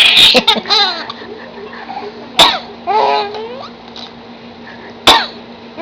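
Coughing: a harsh cough right at the start, then two short, sharp coughs about two and a half and five seconds in, with brief high-pitched vocal sounds in between.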